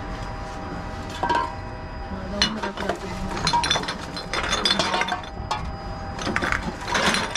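Empty glass bottles and aluminium drink cans clinking and clattering against each other as they are handled one at a time and fed into a reverse vending machine for their deposit refund. The clinks come irregularly, several over the few seconds, over a faint steady hum.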